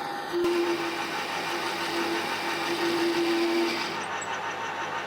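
Optimum TU3008G lathe running while turning down round stock. From about half a second in until near four seconds the cut is louder, with a steady hum, then the machine runs on more quietly.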